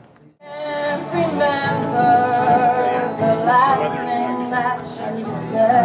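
A woman singing a slow melody to her own acoustic guitar accompaniment. The sound breaks off at the very start and the song comes in about half a second in.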